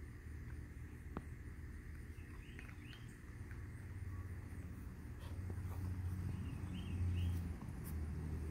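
Outdoor yard ambience: a steady low rumble with a few short high chirps, twice in small clusters, and faint scattered clicks.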